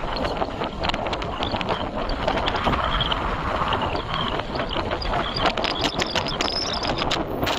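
Wind buffeting the microphone of a moving motorbike, a steady rushing rumble broken by many short crackling gusts.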